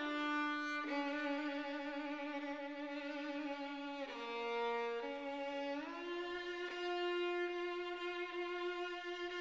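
Background music: a slow violin melody of long held notes, sliding into some of them.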